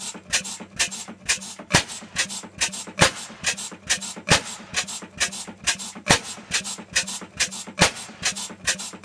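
Large horizontal single-cylinder stationary engine with a heavy flywheel, running at a slow, steady speed. Its valve gear and moving parts give an even clicking rhythm, about three clicks a second, with louder beats about every second and a half over a low hum.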